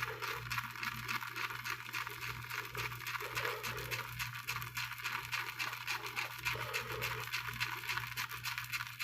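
Synthetic shaving brush, a 33 mm comfort-knot, swirling on a hard puck of bloomed shaving soap with only its bristle tips: a steady, rapid, dry-sounding scratching as the brush loads with soap.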